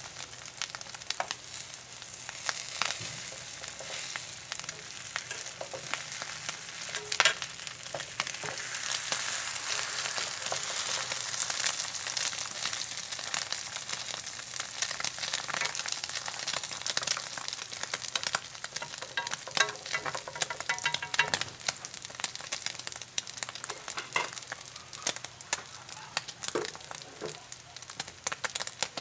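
Duck-egg and catfish-roe omelette frying in hot oil in a pan: a steady sizzle with frequent small crackles and pops, on its second side after being turned over.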